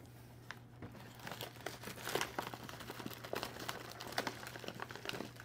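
Food wrapper crinkling and rustling as it is handled, a dense run of irregular crackles starting about a second in.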